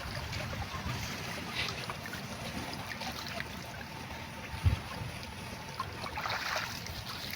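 Shallow water trickling and sloshing, with one short low thump a little past halfway.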